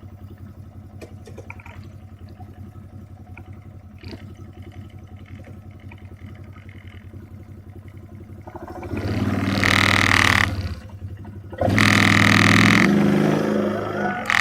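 Quad bike (ATV) engine idling steadily, then revved hard twice, about nine and twelve seconds in.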